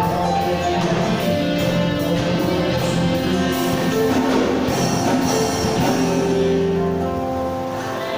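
A live band of drums, bass, guitars and keyboards playing, with a steady cymbal beat up to about halfway, after which the chords are held and ring on.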